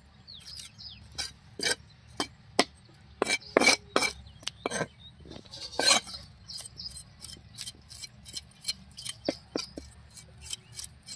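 Steel knife blade tapping, chopping and scraping on a wooden chopping stump while the heads are cut off small sardines, a run of irregular sharp taps with louder clusters about three and a half seconds in and around six seconds in.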